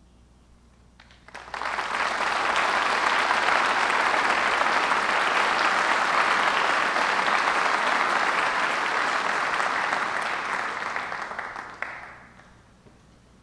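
Audience applauding. The clapping starts suddenly about a second and a half in, holds steady for about ten seconds, and dies away near the end.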